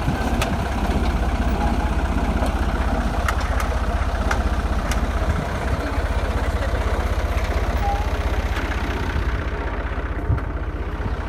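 Farm tractor's diesel engine running steadily at low speed while it pulls a potato planter through tilled soil, with a few light clicks from the machinery. The high end of the sound drops away about nine seconds in.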